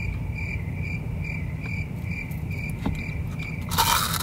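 Cricket-chirping sound effect, a steady high chirp about two and a half times a second, the stock gag for an awkward silence. It stops near the end, where a loud crunch of a bite into a curly fry takes over.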